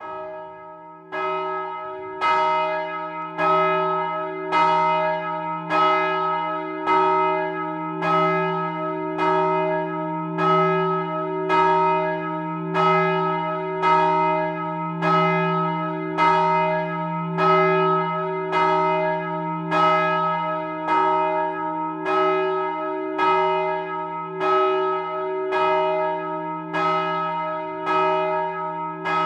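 A single large bronze church bell swinging and ringing, its clapper striking about once a second in a steady rhythm. The first stroke is faint, and the bell reaches full strength about a second in; each stroke rings on into the next.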